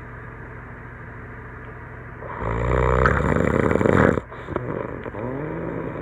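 A sleeping man snoring, with a frog-like sound. After a quieter pause of about two seconds comes one loud snore lasting about two seconds, followed by a softer, wavering sound whose pitch bends up and down.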